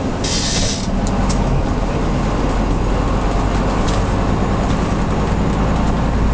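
Gardner 5HLW five-cylinder diesel of a 1959 Bristol MW5G coach running steadily under way, heard from inside the cab. A short hiss comes about half a second in.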